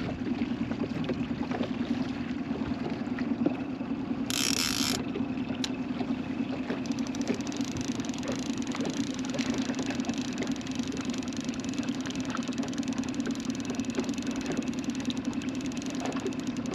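Boat motor running steadily at trolling speed, a constant low hum, with a brief hiss about four seconds in.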